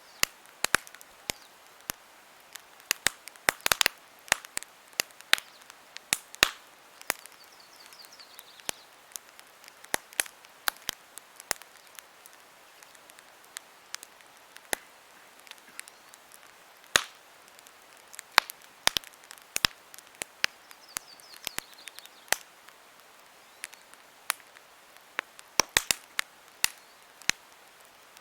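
Wood campfire crackling: irregular sharp snaps and pops over a soft steady hiss.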